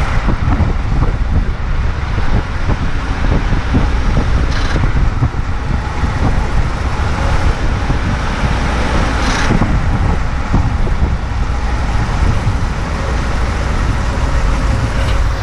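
2018 Ford F-150 pickup on the move, recorded close to the drivetrain: a loud, steady rumble of road and drivetrain noise, with two brief noisy flares about 4.5 and 9.5 seconds in.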